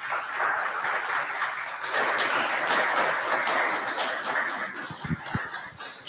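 Audience applauding at the end of a talk: a dense patter of many hands clapping that swells, holds, and fades away near the end.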